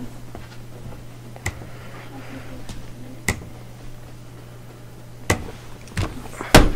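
Several sharp clicks and knocks over a steady low hum, about five in all, the loudest near the end.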